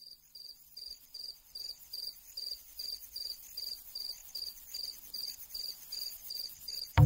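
A short high chirp repeating evenly about two and a half times a second, fading in and growing louder.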